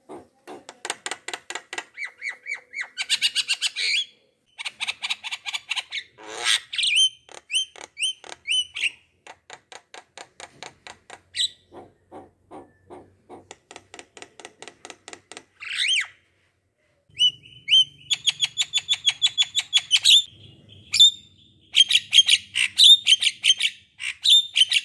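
A bird calling in varied phrases of rapid, repeated short notes, with brief pauses between phrases.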